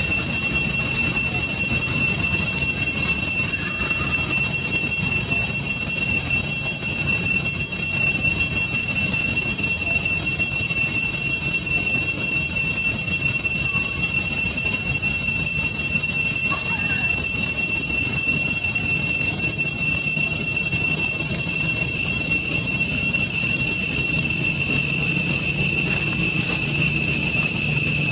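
Cicadas droning: a loud, steady high-pitched buzz that holds the same pitch throughout.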